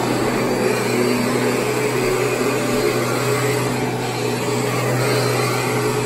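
Kirby G5 upright vacuum cleaner running while it is pushed across carpet: a steady motor hum with a low drone over an even rush of air.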